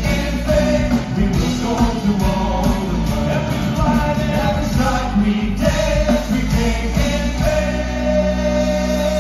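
Upbeat worship song: voices singing over a band with drums. Near the end the drums drop out, leaving sustained notes.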